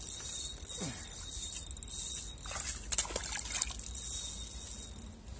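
Hooked bass splashing at the water's surface while it is played on the rod, with a cluster of several splashes a little past the middle.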